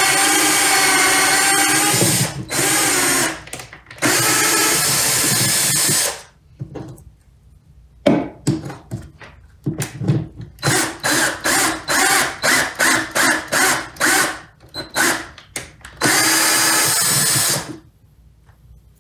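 Black & Decker electric drill with a step bit boring through a plastic container lid. The motor whines in steady runs at first, then in a string of quick short trigger bursts, and ends with one more steady run near the end.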